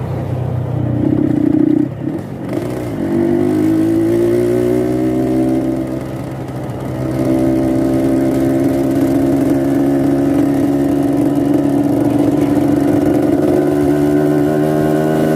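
Yamaha RX-King two-stroke single-cylinder motorcycle engine, tuned for a raspy 'ngorok' (snoring) note. It revs up, dips briefly about six seconds in, then climbs again and holds at high revs.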